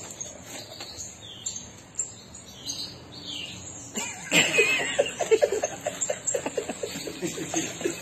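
A few faint, short, high falling chirps, typical of an African grey parrot, then, after a click about halfway through, a run of quick, rhythmic laughter.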